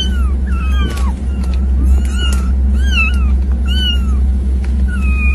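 A cat meowing over and over in a string of short, high calls, each rising and then falling in pitch, roughly one or two a second. A steady low hum runs underneath.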